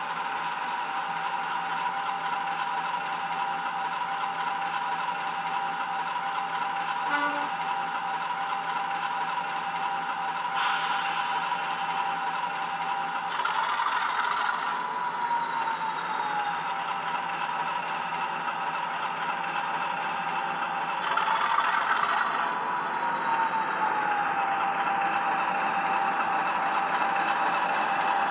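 Howes Class 50 diesel sound played by a Hornby OO-gauge model's Loksound 4 decoder through EM1 and megabass speakers: the engine runs with a steady whine, and twice the engine sound swells while the whine rises and then glides back down. A single click sounds about seven seconds in.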